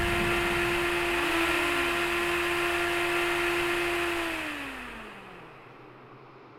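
Aircraft engine running with a steady high whine over a rushing noise; about four seconds in, the whine glides down in pitch and the sound fades away.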